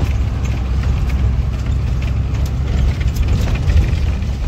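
Bus engine running under load on a rough unpaved road, heard from inside the bus: a steady low drone with scattered knocks and rattles from the bumps.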